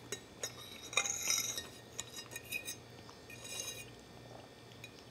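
Metal fork scraping and clinking against a stoneware bowl as it scoops up leftover creamy pasta sauce. There are two busier bouts of scraping, about a second in and again about three and a half seconds in, with single clinks between them.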